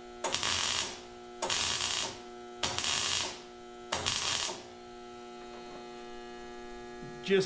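Welder laying four short bursts of weld on the perimeter of a replacement steel floor pan, each under a second and starting and stopping sharply. A steady electrical hum runs underneath and carries on alone after the last burst, about halfway through.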